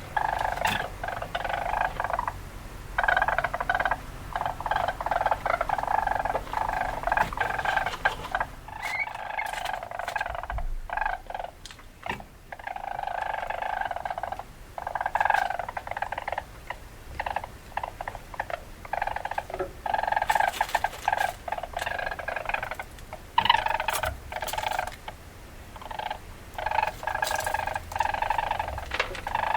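Weasel calling in repeated bouts of rapid chattering, each a second or a few long, broken by short pauses.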